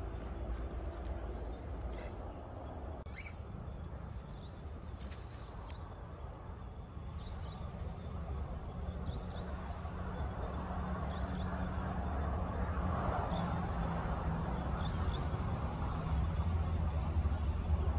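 Low steady engine drone, growing louder through the second half, with a few faint high chirps in the middle.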